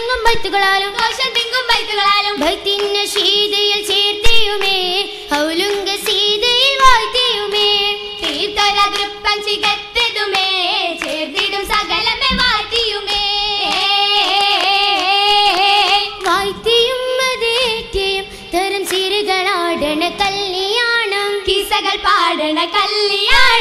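Girls' voices singing an Oppana song, a Mappila folk song, together, with a melody that glides and wavers. Sharp hand claps mark the rhythm.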